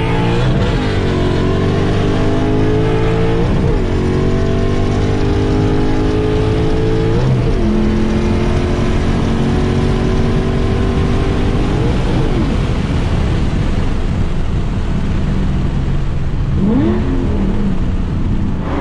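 A 2015 Ford Mustang GT's 5.0-litre V8 with long-tube headers, heard from inside the cabin, pulling through the gears of its six-speed manual. The engine note changes at each of several gear changes, which come a few seconds apart and grow further apart as the car goes up the gears.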